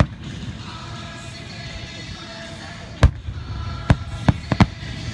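Aerial firework shells bursting: a loud bang about three seconds in, followed within the next second and a half by four sharper, quicker bangs.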